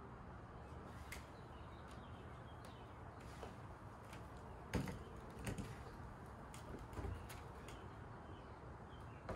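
Ice tools and crampons knocking and scraping on the holds of a dry-tooling wall during a climbing move, with a sharp knock about five seconds in and a couple of lighter ones after it.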